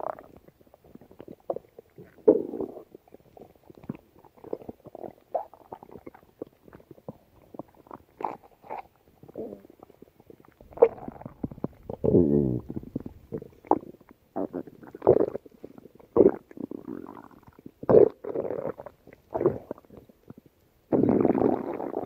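Human stomach growling and gurgling in irregular short gurgles and squeaks, with a longer rumble that falls in pitch about twelve seconds in and a loud, drawn-out gurgle near the end.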